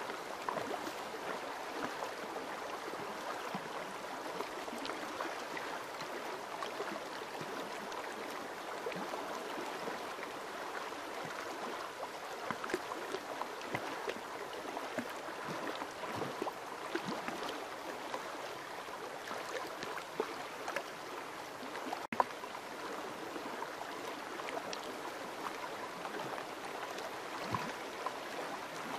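A partly iced-over river running steadily over rocks, a constant rushing flow with many small irregular ticks and splashes. A single sharp click with a momentary dropout about twenty-two seconds in.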